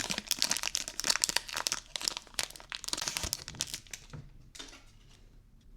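Pokémon booster pack's foil wrapper being torn open and crinkled by hand, a dense crackling that dies down about four seconds in to a few faint rustles.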